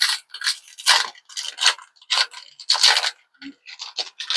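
A foil trading-card pack wrapper being torn open and crinkled by hand: a quick string of short, irregular crackling rustles.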